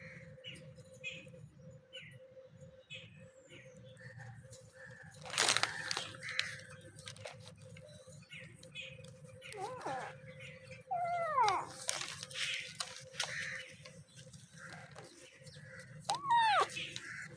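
Cats meowing: a few drawn-out meows that rise and fall in pitch, in the second half. A low hum runs underneath, with short high chirps throughout.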